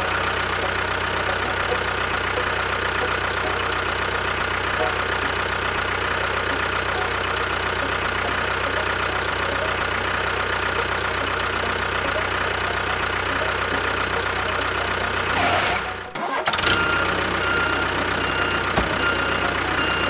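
Small motor of a DIY model construction vehicle running steadily with a constant whine over a low hum, briefly cutting out about sixteen seconds in and then running on.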